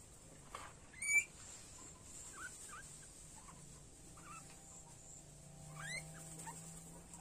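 Guinea pig squealing while being caught and held: two sharp rising squeals, about a second in and again near six seconds, with small squeaks between.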